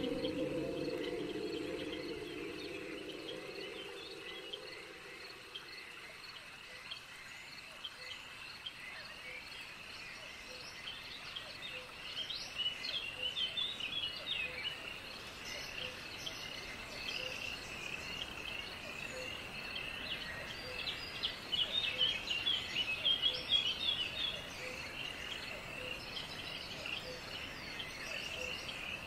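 Soundtrack of nature ambience: a steady chorus of chirping insects, with bursts of bird chirps twice. A low drone fades out over the first few seconds.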